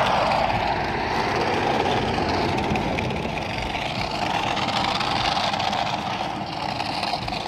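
Steady rush of motorway traffic passing beneath a footbridge, heard from above.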